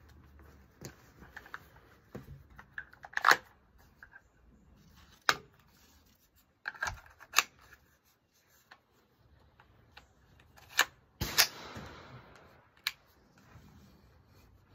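Scattered clicks and clacks of a Smith & Wesson M&P 15-22 rifle being handled as its magazine is seated. The two loudest clacks come about three and eleven seconds in.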